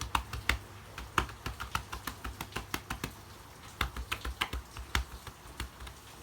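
Chest percussion (cupping): cupped hands clapping rhythmically on a patient's chest or back to loosen phlegm, a run of sharp pats a few a second with a short lull partway through, over a low steady hum.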